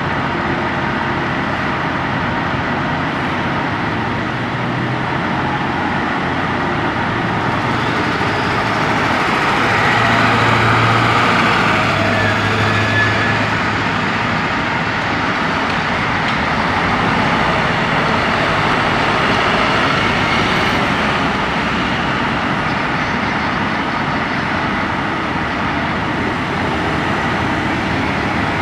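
Steady running of heavy engines and road traffic, with vehicles driving past that swell louder about ten seconds in and again a little later.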